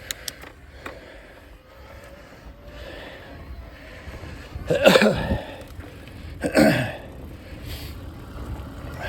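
A mountain biker breathing hard while riding, with two loud, voiced exhales that fall in pitch about five and six and a half seconds in. A few sharp clicks come right at the start.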